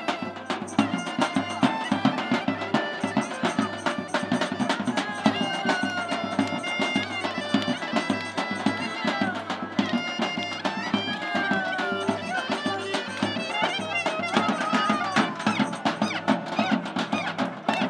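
Bulgarian folk dance music played live by a street band: a clarinet carries a fast, ornamented melody with slides between notes, over accordion and a steady drum beat.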